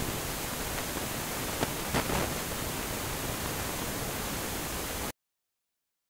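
Steady hiss of background noise, with a couple of faint clicks around the two-second mark. It cuts off abruptly to silence about five seconds in.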